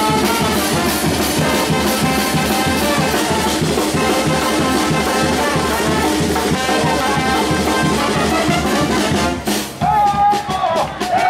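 Charanga street brass band playing: trombones, trumpets and tuba over a steady bass-drum and cymbal beat. The music stops about nine and a half seconds in, and loud shouted voices follow.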